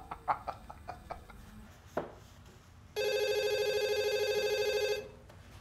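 A man's rhythmic laughter fades out in the first second. Then a corded desk telephone rings once, a steady electronic ring about two seconds long.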